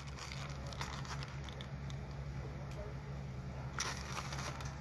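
Light handling noise: soft rustling and small clicks from a packet of ink pens being handled, with a brief louder rustle about four seconds in, over a steady low hum.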